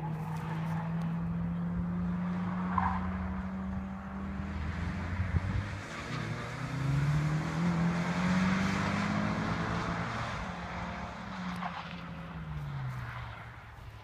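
Mitsubishi Airtrek Turbo's engine being driven hard through a coned course, heard from trackside. The engine pitch holds, climbs with acceleration between about six and nine seconds when it is loudest, then drops and fades near the end.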